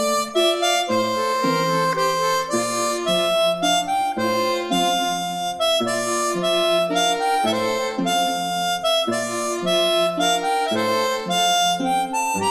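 Background music: an instrumental melody of held notes that change about every half second, over an accompaniment.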